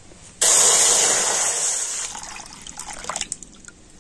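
Liquid milk poured from a bowl into a karai set on a lit stove: a sudden loud rush of liquid about half a second in, fading away over the next two to three seconds with a few small crackles.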